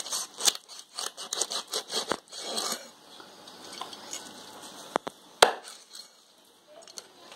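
Kitchen knife cutting into a flathead fish on a cutting board: a quick run of short scraping clicks for about three seconds, then a few single sharp knocks of the blade against the board, the last near the end.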